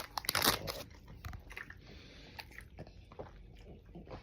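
A man's loud burp trails off in the first second. Quieter wet mouth clicks and gulping sounds follow, typical of chugging a drink.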